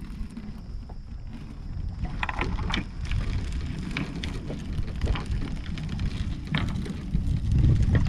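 Wind rumbling on the microphone aboard a small fishing boat, with water splashing and scattered knocks as a bottom gillnet is hauled in. The wind grows stronger near the end.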